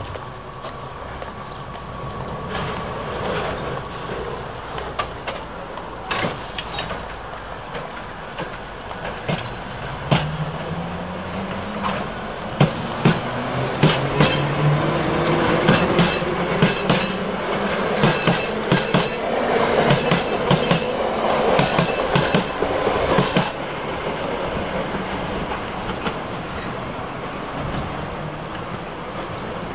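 London Underground Central line tube train of unpainted aluminium 1960s stock pulling out of the platform. Its traction motors whine up in pitch as it accelerates, and a quick run of clicks from the wheels over the rail joints starts partway through and stops about three quarters of the way in.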